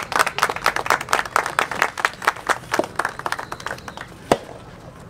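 A small crowd of spectators clapping, many quick, irregular claps that die away a little under four seconds in. A single sharp clap or knock follows a little after four seconds.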